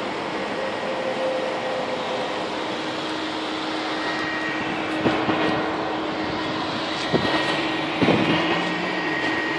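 Steady vehicle noise: a rushing hum with a faint low tone, broken by three short knocks about five, seven and eight seconds in.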